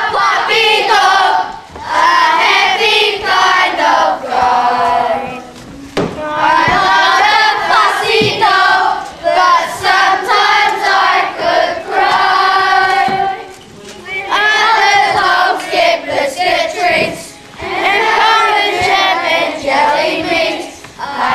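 A group of children singing a song together, loud, in sung lines with short breaks between them.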